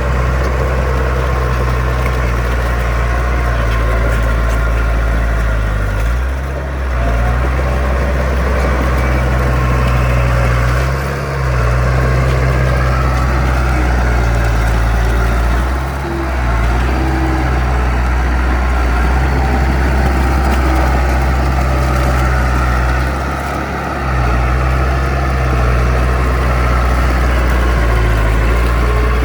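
Heavy diesel engine of earthmoving machinery (dump truck or bulldozer) running steadily with a deep hum, easing off briefly a few times.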